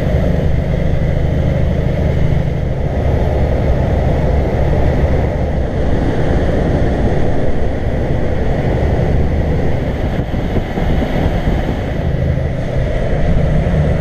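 Kenworth truck's diesel engine and road noise heard inside the cab at highway speed: a steady low engine hum under rushing tyre and wind noise. The low engine note eases a few seconds in and comes back strongly near the end.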